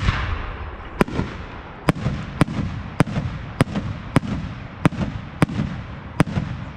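Fireworks display: aerial display shells firing and bursting, with a loud cluster of reports at the start followed by about nine sharp booms spaced roughly half a second to a second apart.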